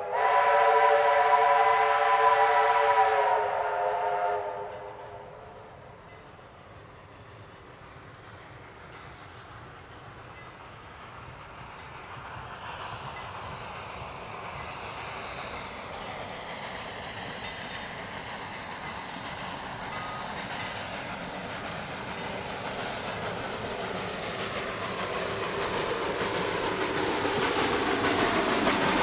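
Steam locomotive whistle blowing one long chord of several tones, dying away about four seconds in. After a lull, the approaching steam train's running noise builds steadily louder toward the end.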